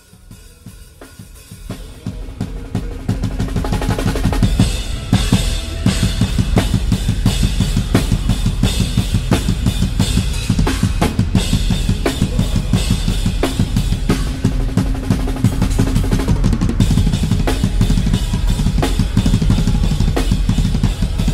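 Drum kit with Zildjian cymbals played fast and hard, rising from faint over the first few seconds. Rapid bass drum strokes run under snare hits and repeated cymbal crashes.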